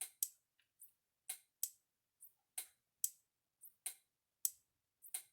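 Kencove EKD3 electric fence charger firing its output pulses into a fence tester: sharp, short ticks, roughly two a second, some louder than others.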